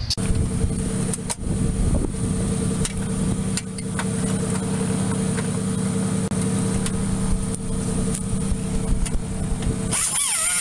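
Handheld grinder running steadily as it trims the front wheel-well lip for tire clearance, over a steady low motor hum.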